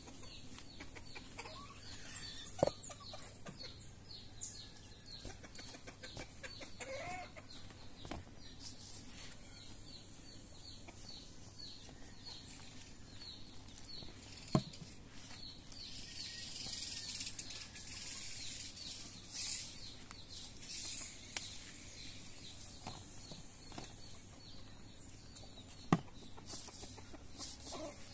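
Chickens clucking and small birds chirping throughout, with three sharp knocks from hands kneading flour dough in a stainless steel bowl.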